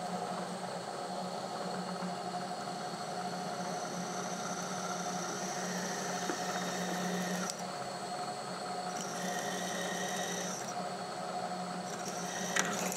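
A twist drill cutting a hole into a metal round bar on a milling machine, the spindle running with a steady hum. A high whine from the cut comes and goes as the bit feeds in, with a few sharp clicks near the end.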